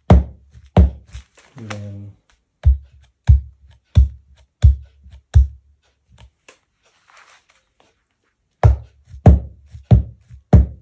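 Cigar box stomp box foot drum stomped and amplified through a Bose S1 Pro speaker with the bass up: deep kick-drum thumps in a steady beat, about one and a half a second. A run of beats, a pause of about three seconds, then another run.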